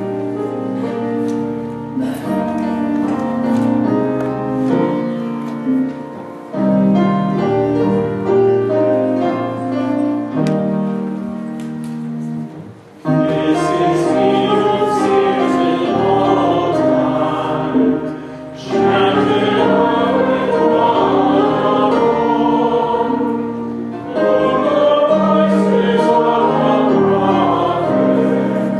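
Live worship band playing a song on acoustic guitar, piano and congas. Voices come in singing about halfway through.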